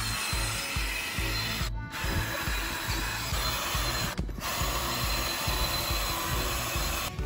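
Small cordless rotary tool spinning a wire wheel brush against the boat's brass and stainless steel stern fitting, scrubbing pitted corrosion down to bare metal. It breaks off briefly twice, just under two seconds in and about four seconds in.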